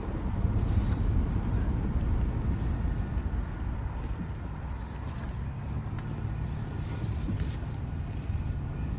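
2007 Toyota FJ Cruiser running with a steady low rumble, with several short, hissy rattles every couple of seconds: the rattling noise in the vehicle.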